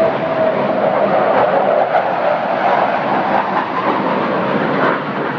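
Blue Angels F/A-18 Hornet jets flying past: a loud, steady jet rush with an engine whine that falls slightly in pitch and fades out shortly after the start.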